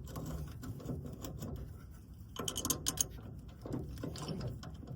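Irregular mechanical clicks and rattles of metal hardware and hand tools being handled, densest a little past halfway.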